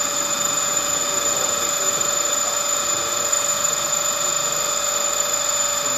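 High-velocity rotary shear apparatus running steadily at 1500 rpm, shearing a pair of andesite rock cylinders pressed together at 1 MPa to frictional melting. It gives a steady machine whine of several held tones over an even hiss, at an unchanging level.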